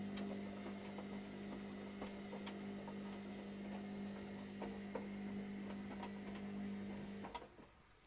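Washing machine running with a steady electric hum and a few faint ticks; the hum cuts off suddenly about seven seconds in.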